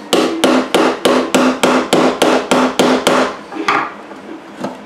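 A flathead screwdriver is struck to drive it into the glued seam of a plastic smart-plug case: about a dozen sharp blows, roughly three a second, each with a short ringing note. The blows stop about three seconds in and two lighter taps follow.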